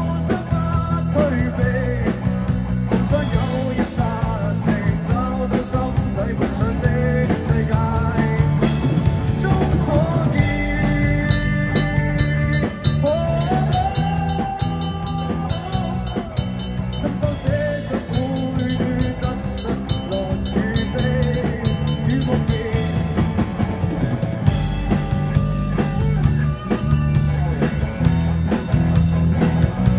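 Live rock band playing: drum kit, bass guitar, electric guitars and acoustic guitar, with a bending melodic line over the top.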